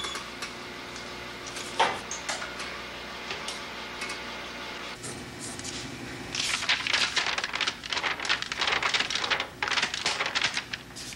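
Sheets of paper with pencil animation drawings handled with a couple of light clicks, then flipped rapidly in a fast, crisp paper rustle for the last five seconds or so.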